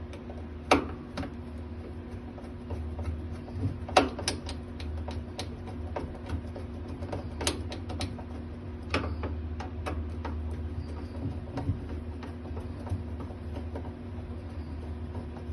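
Irregular sharp metal clicks and taps of a screwdriver and panel parts as a clothes dryer is screwed back together, over a steady low hum.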